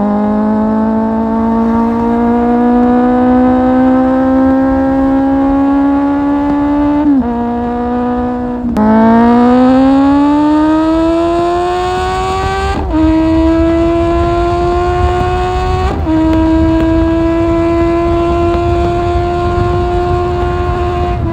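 Kawasaki Z750's inline-four through an Akrapovic exhaust, under way with the revs climbing steadily. The pitch breaks at gear changes about 7, 9, 13 and 16 seconds in, then holds a nearly steady note.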